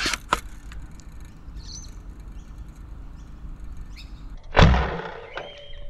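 Sabre M20S spring-powered foam dart sniper blaster, with a 26 kg spring, firing once about four and a half seconds in: a single sudden heavy thump with a short fading tail. A couple of light clicks come near the start.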